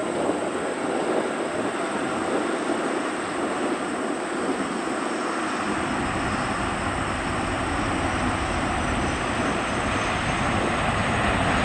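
Jet engine noise from an Airbus A350-900's Rolls-Royce Trent XWB engines as the airliner rolls out along the runway just after landing, a steady noise slowly getting louder.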